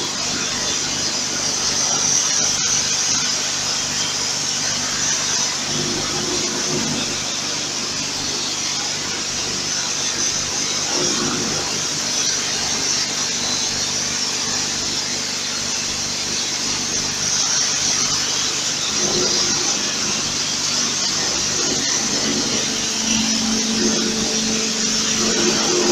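Steady hiss of a high-pressure water spray from a washer lance striking stainless steel as an IP67-rated checkweigher is washed down. A low hum comes and goes several times, loudest near the end.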